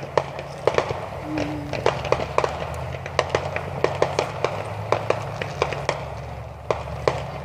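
Fireworks crackling: a rapid, irregular series of sharp pops, several a second, over a steady low hum.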